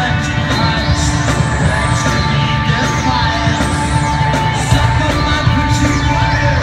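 Live rock band with electric guitars, keyboards and drums playing loudly and steadily, with a singer's voice over it, heard from the audience in a concert hall.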